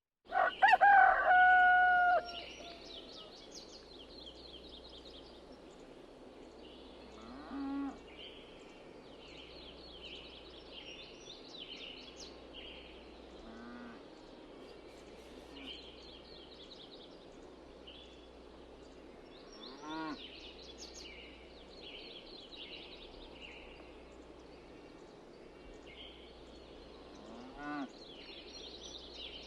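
A rooster crows loudly once, about half a second in, in a long held call. Afterwards many small birds chirp quietly and steadily in the background, broken by a few short, lower animal calls spaced several seconds apart.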